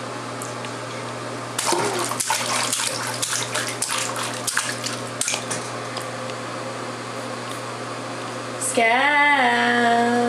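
A baby splashing and slapping at bathwater in a tub, a busy run of small splashes and drips that dies away about halfway through. Near the end a voice holds a long vowel that rises and falls in pitch, over a steady low hum.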